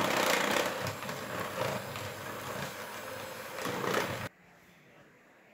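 Bosch electric hand mixer running with its beaters in a thin flour batter in a plastic bowl, then switched off and cutting out suddenly about four seconds in.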